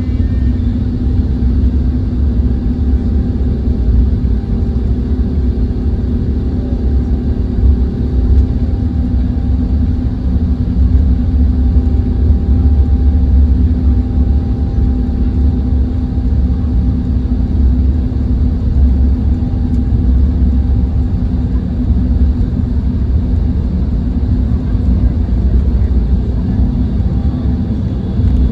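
Airbus A350-900 cabin noise while taxiing: a steady deep rumble from the airliner rolling on the ground with its engines at idle, plus a steady hum. One tone of the hum stops about nine seconds in.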